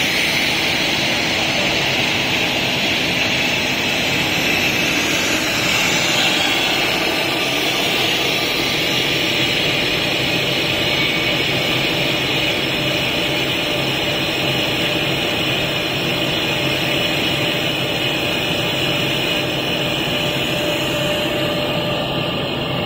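3D-printer filament extrusion line running, with a steady rushing whir of its air-cooling fans and motors and a faint steady hum underneath.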